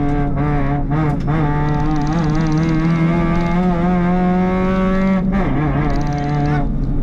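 Rally car's engine at full throttle, heard from inside the cabin: its pitch climbs steadily for about four seconds, drops at a gear change about five seconds in, climbs again, then falls away near the end as the driver lifts off.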